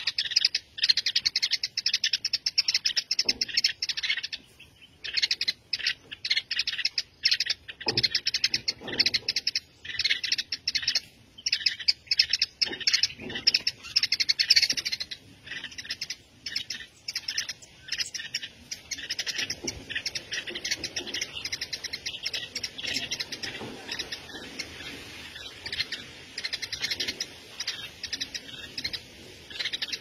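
Small birds chirping in quick runs of sharp, high calls, each run lasting a few seconds with short pauses between. The calls are dense and loud in the first half, then grow sparser and quieter after about halfway.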